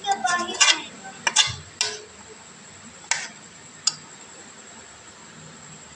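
A steel spoon clinking against the side of an aluminium cooking pot while stirring a curry: a handful of sharp clinks in the first four seconds, then only a faint steady hiss.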